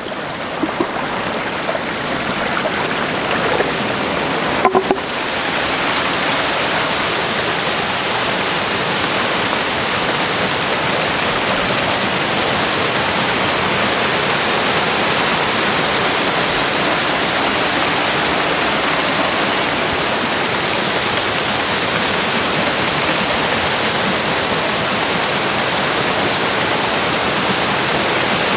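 Rain-swollen creek water pouring over a small concrete dam and jetting out of its flume: a steady rush of falling water that grows louder about five seconds in. A few short knocks come in the first five seconds.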